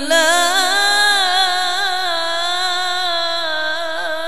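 A male qari chanting Quran recitation (tilawat), holding one long, unbroken melodic phrase whose pitch wavers and glides in ornamented turns.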